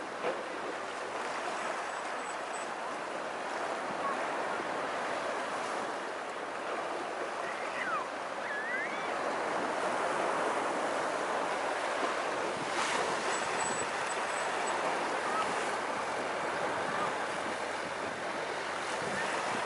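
Small waves breaking and washing up a sandy beach: a steady surf hiss that swells a little around the middle.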